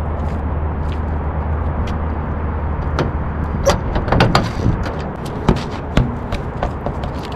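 Knocks and clanks from unloading the bed of a pickup truck, as a spare wheel and gear are shifted and lifted out, with several sharp knocks between about three and six seconds in, over a steady low rumble.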